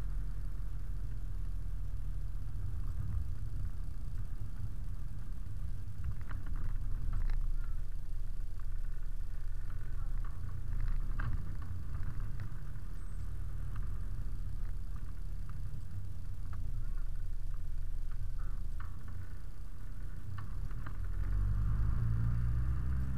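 Delivery truck's engine and road noise heard inside the cab while driving: a steady low rumble with light irregular rattles, swelling a little near the end.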